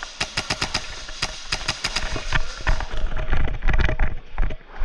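Airsoft guns firing: a rapid full-auto burst of sharp clicking shots at about ten a second, then scattered single shots. In the second half a loud low rumble with knocks comes in.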